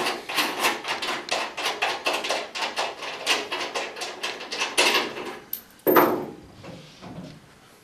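Rapid run of small metallic clicks and clinks, several a second, as a bolt-and-washer assembly is spun out of a plus nut by hand and hardware is handled on the truck bed, with a louder clink about six seconds in.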